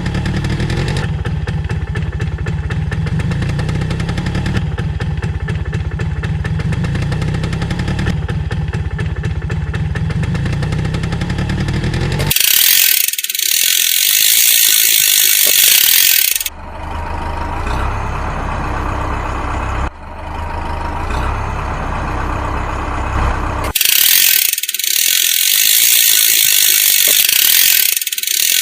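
Edited mechanical, vehicle-like sound effects. First a dense, fast-rattling low rumble for about twelve seconds. Then a loud hiss for about four seconds, a low hum for about seven, and the hiss again near the end, each change sudden.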